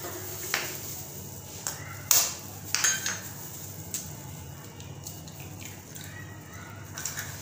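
Kitchen utensils and dishes clinking and knocking as ingredients are handled in a bowl: several separate sharp knocks, the loudest about two seconds in.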